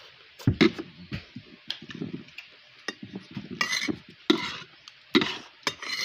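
Metal spoon and fork stirring and scraping noodles in a ceramic bowl, with a run of sharp clinks against the bowl's side.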